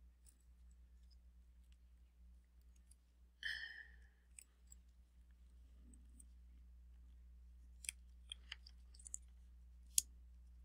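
Faint clicks of iPhone 11 Pro Max flex cable connectors being pressed by hand onto their logic-board sockets: a brief rustle about three and a half seconds in, then a scatter of sharp clicks near the end.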